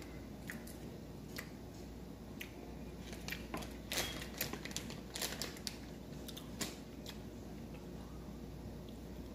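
Crinkling of a small plastic Skittles bag as candies are taken out of it: a run of sharp crackles and clicks through the middle few seconds.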